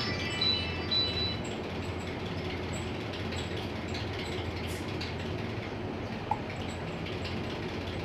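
Steady background hum and hiss, with a brief high chiming tone of a few pitches in the first second and a half.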